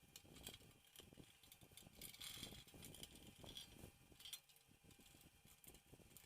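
Faint clicks, rattles and short scrapes of small parts being handled as the cover of an electrical plug is fitted back on and closed.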